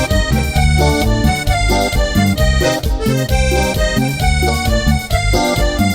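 Instrumental passage of a tropical dance song: a melodic lead over bass and percussion, with a steady dance beat.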